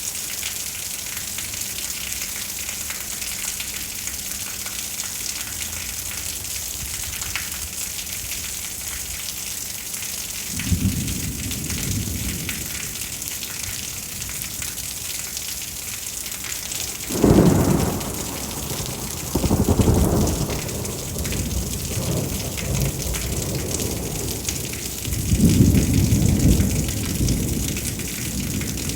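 Steady rain falling, with several low rolls of thunder in the second half, the loudest about two-thirds of the way in and near the end.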